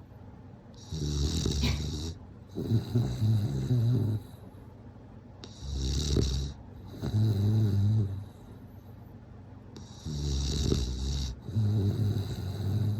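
Bulldog snoring, three slow breaths about every four and a half seconds. Each breath comes in two parts: a hissing snore, then a lower, buzzing snore.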